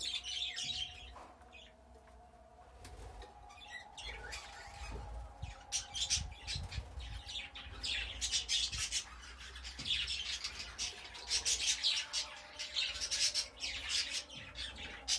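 A group of budgerigars chattering and chirping, a busy run of short high calls that grows denser about halfway through.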